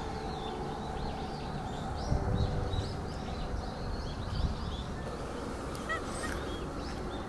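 Small birds chirping repeatedly against steady outdoor background noise, with a short meow from a ginger cat near the end.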